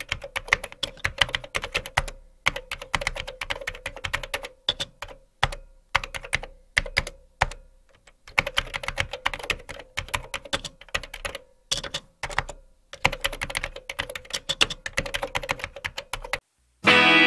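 Computer-keyboard typing sound effect: rapid runs of clicking keystrokes, each a second or a few seconds long, with short pauses between them, stopping just before the end.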